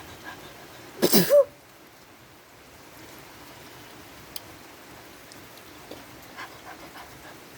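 A person sneezing once, a short sharp burst about a second in, an allergic sneeze set off by sniffing flowers.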